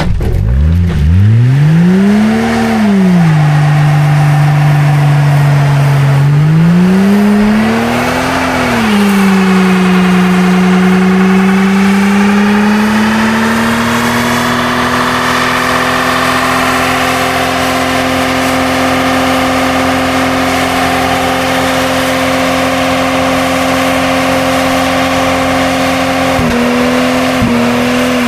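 Old Jeep Cherokee engine revving hard: the revs climb and fall twice, then are held high and steady for most of the time, with two brief dips near the end.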